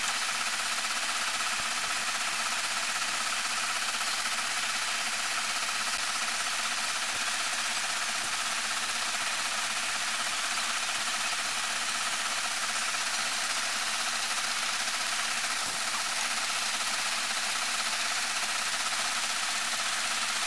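Lathe running steadily, its chuck spinning a grooved PVC wheel blank.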